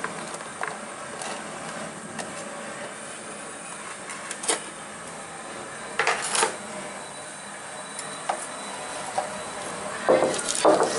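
A few scattered light clicks and taps as green chillies go into a traditional stone grinder (aattukal). About ten seconds in, the heavy stone pestle starts turning in the stone basin: loud, rough stone-on-stone grinding and scraping as the raw masala is ground.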